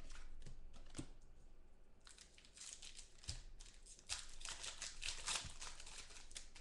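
Clear plastic trading-card sleeve crinkling and crackling as hands work cards in and out of it. The crinkling grows busier about two seconds in, with a few soft knocks of cards against the table.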